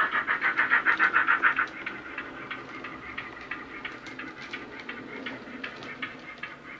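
Steam locomotive exhaust chuffs from a Loksound 5 micro decoder with Jamie Goodman's GWR 45XX Prairie sound, played through a small sugarcube speaker in a moving OO model tank engine: quick even beats, about six a second, which drop sharply in volume a little under two seconds in. The sound goes on quieter with scattered sharp clicks.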